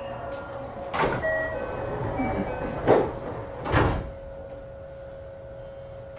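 Cabin sound of a JR West 321 series electric train car: a low hum with a steady tone throughout, broken by three loud thumps about one, three and four seconds in, then settling quieter.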